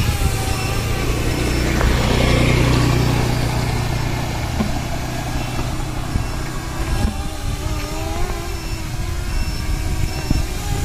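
7-inch FPV quadcopter's motors and propellers buzzing in flight, the pitch wavering up and down with the throttle. Under it is the low, steady running of a motorcycle engine, loudest a couple of seconds in and gone by about two-thirds of the way through.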